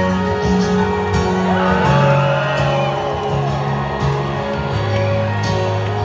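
Live rock band playing: strummed acoustic guitar with electric guitar and steady bass notes, with singing and some shouts from the crowd.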